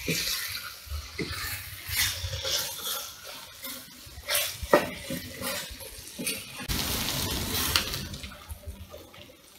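Liver pieces sizzling in oil in a frying pan while a spatula stirs them, with scattered clicks and scrapes of the spatula against the pan. The sizzle swells for a second or so about seven seconds in.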